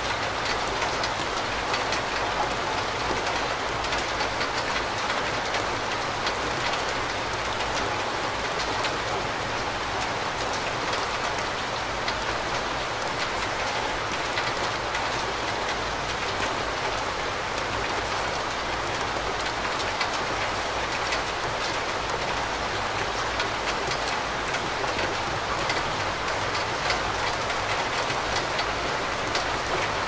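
Steady rain falling: an even hiss with faint ticks of single drops.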